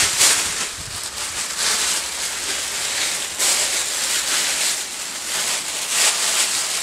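Loud crinkling rustle of a thin spinnaker-cloth poncho being shaken out and pulled on over the head, rising and falling in surges as the fabric is flapped and tugged.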